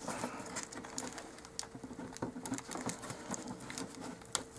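Faint, irregular small clicks and scratches as the prongs of a dollhouse tape-wire junction splice are pushed and worked into a foam-core wall.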